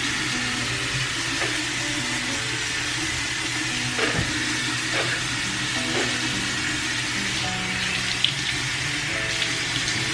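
Tap water running into a sink while hands scoop and splash it over the face to rinse off cleanser, with a few splashes standing out through the middle. Soft background music with a slow low melody plays underneath.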